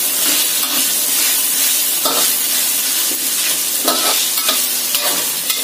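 Chicken pieces, shallots and ginger sizzling in hot oil in a wok while a metal spatula stirs and turns them, scraping across the pan a few times.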